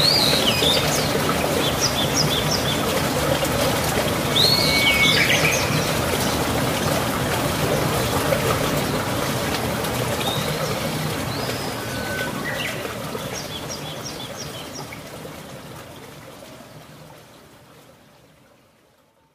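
Birds chirping in short calls over a steady rush of running water, the whole fading out gradually over the last several seconds.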